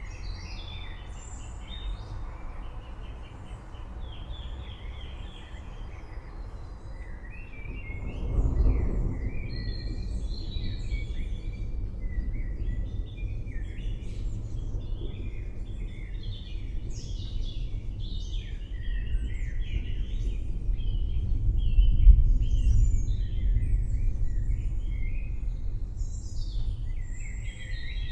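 Low rumbling of distant thunder, swelling about 8 seconds in and again more strongly about 22 seconds in, with birds chirping and singing throughout.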